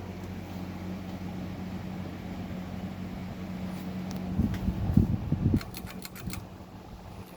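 A 1998 Windmere 52-inch ceiling fan's motor hums steadily. About four seconds in, some low knocks are followed by a quick run of half a dozen sharp clicks, and the hum then continues more faintly.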